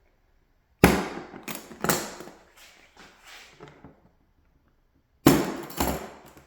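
Plastic tool case latches snapping open and the hard case clacking as it is handled: a few sharp clacks about a second in and two more near the end.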